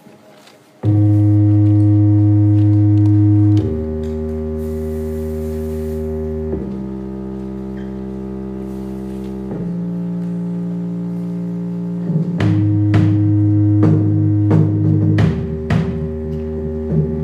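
Live instrumental music: sustained, organ-like chords that start abruptly about a second in and change about every three seconds. Near the end, a steady beat of percussive hits joins in, about two a second.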